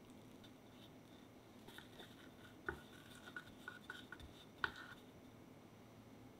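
Faint scraping and a run of light clicks from a metal icing spatula smoothing whipped cream on a cake turntable, with two sharper clicks in the middle.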